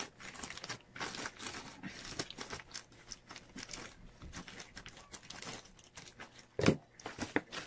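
Scissors cutting through a plastic courier mailer bag, the thin plastic crinkling and crackling as it is snipped and handled, with one louder knock about two-thirds of the way through.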